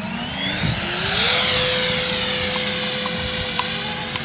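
Electric motor of a styrofoam RC jet model spooling up: a whine that rises in pitch for about a second, then levels off and holds steady at high throttle.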